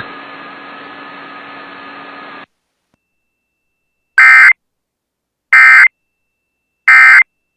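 Emergency Alert System end-of-message data bursts: three identical short, shrill digital warbles about a second apart, the SAME signal that closes an EAS test. Before them, a couple of seconds of steady radio-receiver hiss cut off suddenly about two and a half seconds in.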